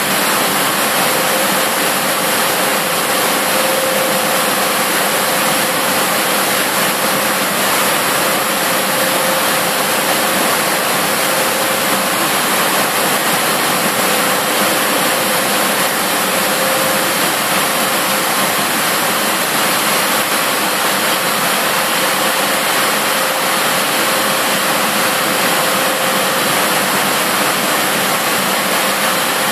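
Factory machinery running: a steady, loud rushing noise with a faint hum under it, unchanging throughout.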